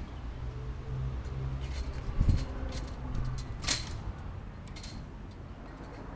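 Low steady rumble with a scatter of light clicks and rattles, a dull thump about two seconds in and a sharp click a little before four seconds, typical of a handheld camera being carried.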